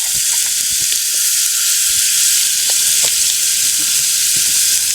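Rocky Mountain whitefish frying in butter in a hot pan: a steady, loud sizzle with small pops.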